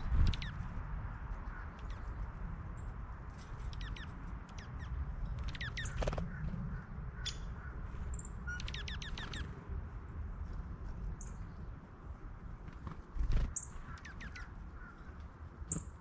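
Songbirds at a backyard feeder chirping in short quick clusters of chip notes, with a few high thin single notes, over a steady low rumble. A few dull thumps stand out, the loudest just after the start and about 13 seconds in.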